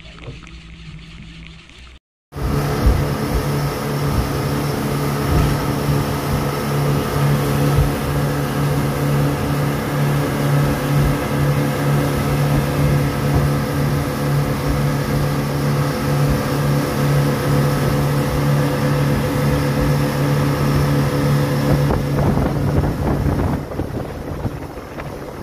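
A motorboat's engine running steadily under way: an even, pitched hum with wind and water noise. It comes in abruptly after a brief gap about two seconds in and drops to a quieter level near the end.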